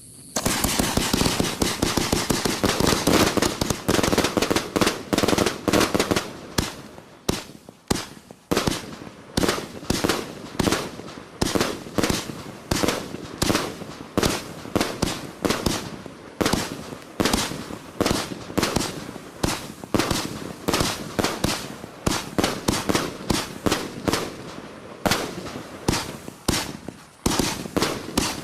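Sky Candy XL firework cake firing: a rapid, even run of shots launching and bursting, a few a second without a break, its breaks including titanium reports. It starts about a quarter of a second in with a dense crackling burst.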